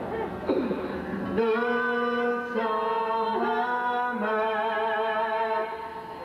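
Karaoke duet: a woman and a man singing into microphones, over music, holding long sustained notes.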